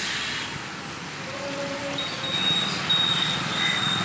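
Outdoor road traffic ambience: a steady wash of noise with motorcycles riding past. A brief lower tone comes a little over a second in, and a thin, high steady tone runs through most of the second half.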